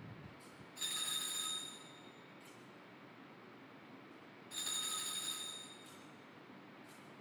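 Altar bell rung twice during the elevation of the chalice, each stroke a bright metallic ring that dies away over about a second, the second stroke about four seconds after the first, with a few faint metallic clicks between.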